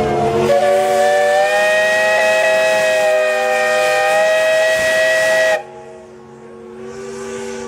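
Steam chime whistle blowing a loud, steady chord of several notes at once, which cuts off sharply about five and a half seconds in. A fainter whistle tone carries on after it.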